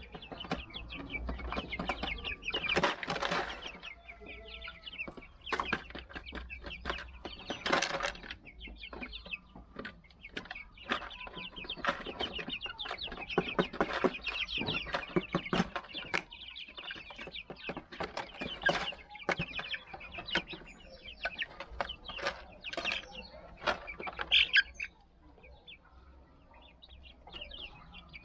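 Young Silver Laced Wyandotte chickens peeping and clucking as a flock while they feed, with many quick taps of beaks pecking at a plastic bottle feeder and the ground. Quieter for the last few seconds.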